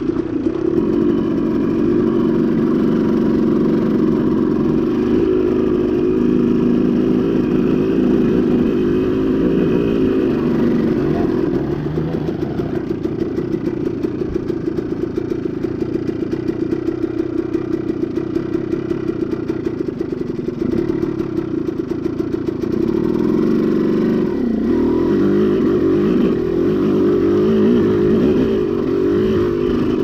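KTM two-stroke dirt bike engine running under load on the trail, revving up and down with the throttle. It eases off through the middle and revs harder again near the end, with some rattling from the bike.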